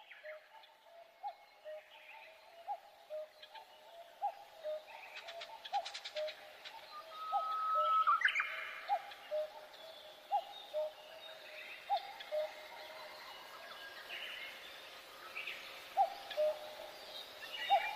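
Birds calling: a low call repeated about every second and a half, with scattered higher chirps and whistles from other birds over it, busiest about eight seconds in.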